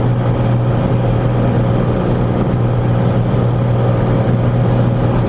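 Cessna 182 Skylane's piston engine and propeller running steadily while climbing out just after takeoff, a constant low hum that stays at one pitch.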